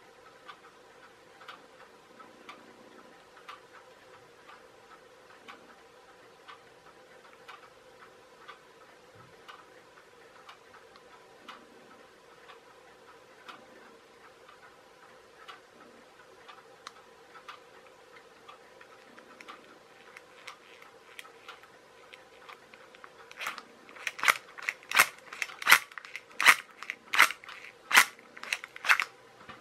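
Faint, even ticking at about two ticks a second over a low steady hum. About 24 seconds in, a quick, irregular run of louder clicks and taps: fingers handling the plastic toy car chassis and its flywheel gearbox.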